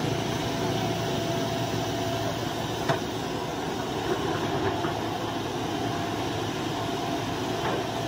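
Diesel excavator engines running steadily while the machines work in deep mud, with one sharp knock about three seconds in.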